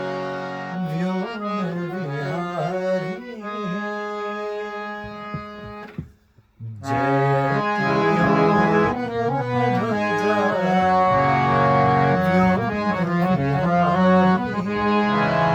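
Harmonium playing sustained chords with a voice singing over it. The music breaks off briefly about six seconds in, then resumes louder and fuller in the bass.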